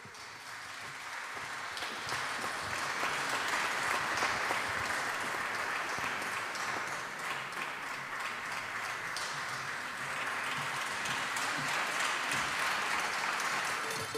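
Audience applauding, building up over the first couple of seconds and then holding steady.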